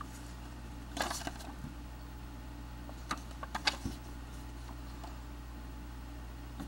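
Trading cards being handled and flipped through: a short rustle about a second in, then a few quick light clicks and flicks around three to four seconds, over a steady low hum.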